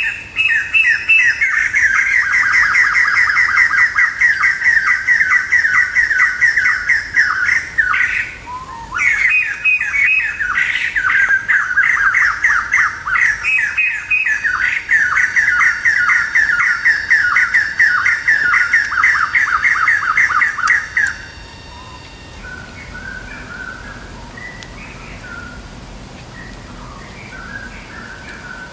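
Loud, rapid pulsing call of a forest animal: a steady train of high notes several per second. It breaks off briefly about eight seconds in and stops about two-thirds of the way through, after which only faint scattered chirps remain.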